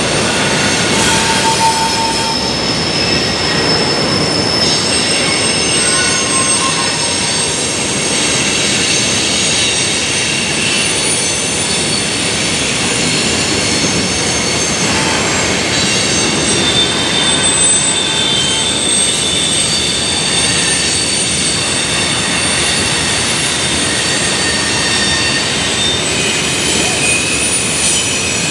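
Freight train rolling past, its steel wheels squealing on the rails: many high squeals shift and overlap over a steady rumble.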